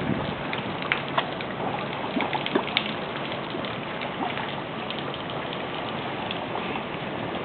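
Water rushing steadily, with many small drips and splashes scattered through it.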